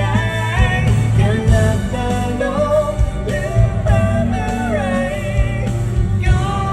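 Live Thai pop song: a singer's voice carrying the melody over a full band.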